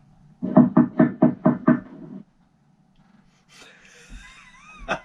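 Knocking: six quick, even raps, about four a second, which the guesser takes for someone knocking at the door.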